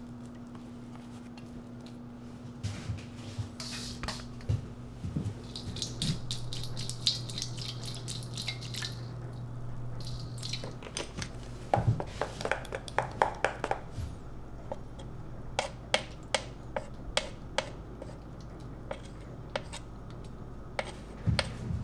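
Liquid leaven poured and splashing into a large stainless-steel pot, then a metal spoon scraping and tapping against a stainless-steel bowl in a string of short clicks. A steady low hum runs under the first half and stops about halfway through.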